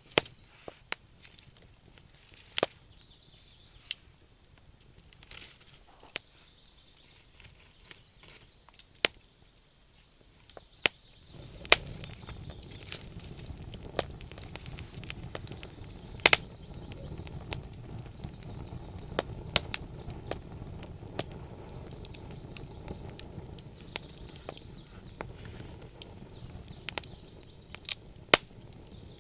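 Wood fire burning in a fireplace, crackling with sharp scattered pops. About a third of the way in, a steady low rushing joins the crackle and stays.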